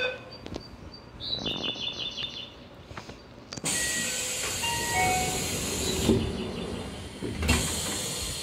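Commuter train doors closing at a station stop: a short pulsing chime, a few short falling tones, then a long air hiss and the doors thudding shut, with a second thump and hiss near the end.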